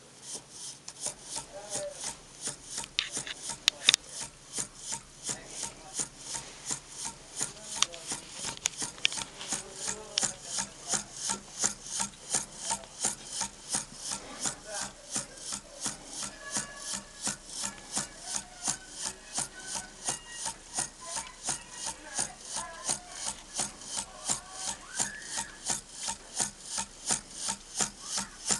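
Homemade thermoacoustic hot-air engine metronome running, its mechanism giving a steady rhythm of sharp, scratchy ticks a little over two a second, with one louder click about four seconds in.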